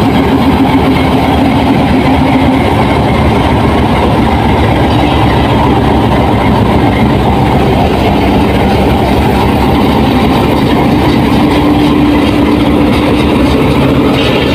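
Pakistan Railways RGE-24 diesel-electric locomotive's engine running, a loud steady drone with a steady hum through it, heard up close beside the locomotive's running gear.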